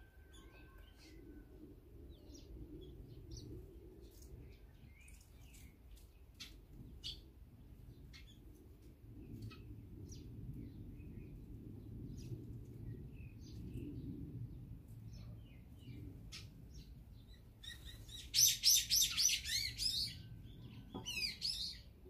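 Small songbirds calling: scattered short high chirps, then a loud burst of rapid repeated chirping calls about eighteen seconds in, and a shorter burst of falling notes a few seconds later. A faint low rumble runs underneath.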